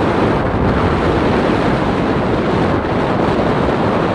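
Steady, loud storm wind buffeting the microphone over rough, choppy water washing against the shore and dock.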